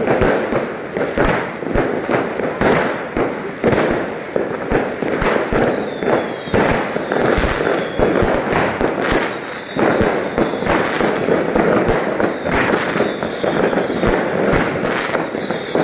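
Many fireworks and firecrackers going off at once, a dense, continuous run of bangs and crackles with no let-up. A few faint falling whistles sound through it.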